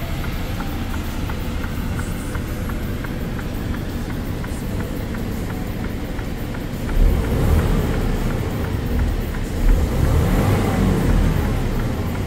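Mercedes-Benz Actros 1843 straight-six diesel heard from inside the cab, idling in neutral with a light regular ticking about four times a second. About seven seconds in it is revved up, rising and falling a couple of times.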